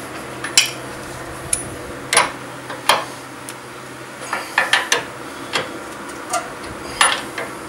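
Steel hand tools clinking on a tight suspension nut and bolt as a breaker bar and wrench are fitted and shifted on it: sharp metal clicks and clanks at irregular spacing, several in a quick run about halfway through, over a steady low hum.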